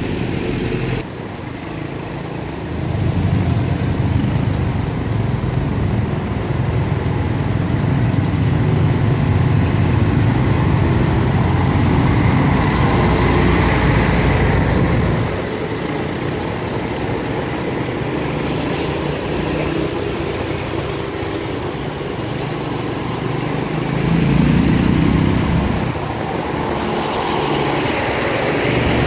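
City road traffic heard from a moving vehicle: engines of motorcycles, cars and trucks over a steady low rumble, which dips about a second in, swells a few seconds later, eases about halfway through and rises again near the end.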